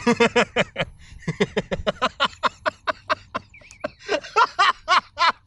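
Men laughing hard in rapid, evenly spaced "ha-ha" pulses, in three runs with short breaks.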